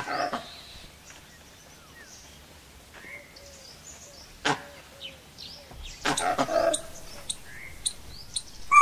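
Bengal tiger snarling, a short snarl at the start and a longer one about six seconds in, with small birds chirping in the background and one sharp crack in between.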